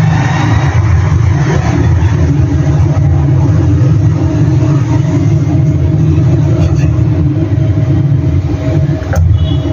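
Steady, loud low mechanical rumble, like a heavy engine running, with a single sharp click near the end.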